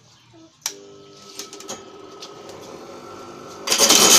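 Homemade corn sheller driven by a bench-grinder motor: a click, then the motor running with a steady hum. Near the end a loud rattling rush sets in as an ear of corn is pushed into the spinning perforated drum and the kernels are stripped off the cob.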